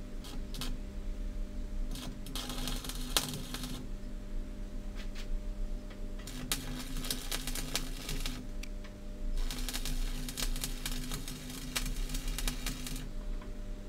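Stick arc welding on steel: three bursts of crackling arc, about a second and a half, two seconds and three and a half seconds long, with short pauses between, over a steady low hum.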